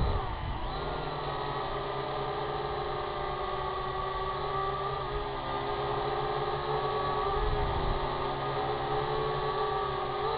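Syma X8HG quadcopter's motors and propellers whining in flight: a steady, several-toned buzz whose pitch dips and rises together a few times as the motor speed changes.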